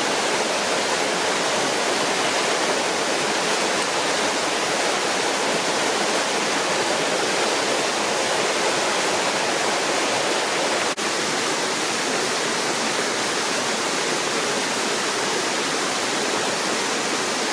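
Waterfall on a moorland stream: a loud, steady rush of falling water, with a momentary break about eleven seconds in.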